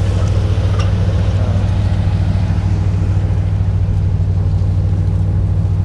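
Farm machinery engine running steadily at constant speed: a loud, even low hum.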